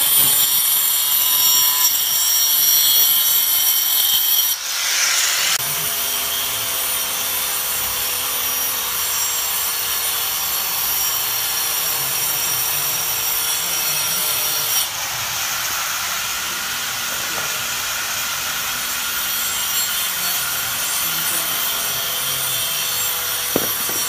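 Angle grinder running, its disc cutting grooves into a thick wooden chopping board. About five seconds in, after a short burst, a steadier and quieter power-tool whine follows: an electric drill boring a hole into another wooden board.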